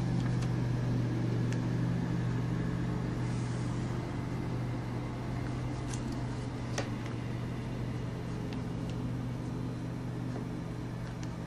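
A steady low hum, with a few faint light ticks as a marker and ruler are handled on paper.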